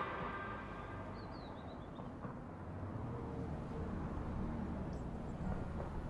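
Open-air ambience: a steady low rumble with a few faint, short bird chirps, one about a second in and another near the end.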